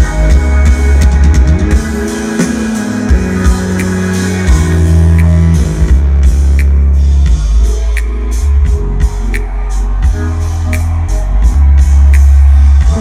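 Loud live electronic music with deep held bass notes that change every second or two, a live drum kit playing, and snare hits cracking through more plainly in the second half.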